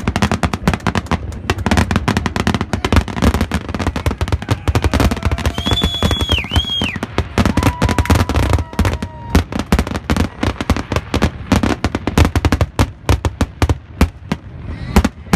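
Fireworks display: a dense, rapid string of bangs and crackles from aerial shells going off over and over without a break, with a few held pitched tones rising above the crackle around the middle.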